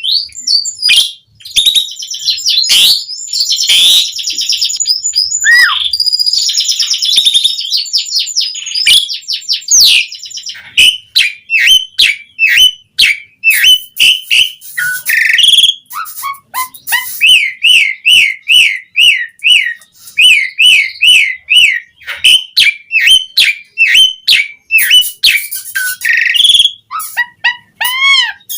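Asian pied starling singing nonstop in a long, varied song, with harsh chattering and rapid clicking notes. Later it switches to a quick run of repeated rising-and-falling whistled notes.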